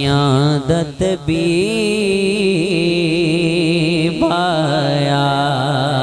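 A man singing a naat (an Islamic devotional song) into a microphone, stretching one long wavering phrase with strong vibrato. The phrase breaks off briefly about a second in and again near four seconds, over a steady low drone.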